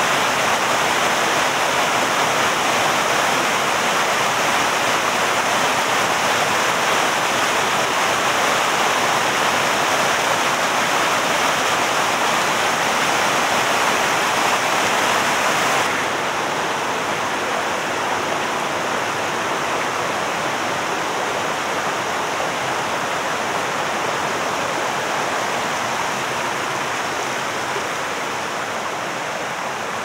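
Water of a small forest waterfall rushing steadily over rocks. About halfway through it becomes suddenly a little quieter and duller, and it drops slightly again near the end.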